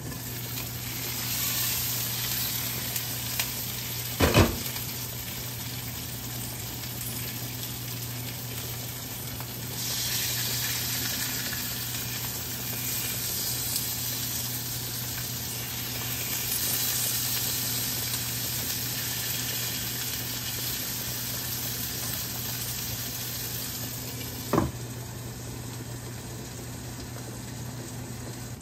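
Food sizzling in a frying pan, the sizzle swelling and easing several times over a steady low hum. Two sharp knocks stand out, one about four seconds in and one near the end.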